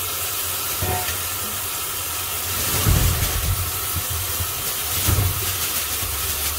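Kitchen tap running in a steady stream into a stainless-steel sink filling with water. Around three and again five seconds in there are soft low thuds as button mushrooms are tipped from a bag into the sink.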